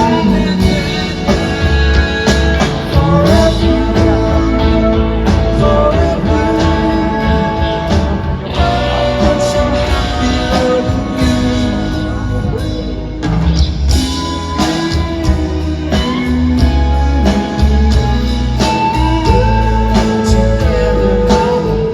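Live band music: a slow ballad with electric guitar, bass and drums under sustained vocal harmonies without lead words.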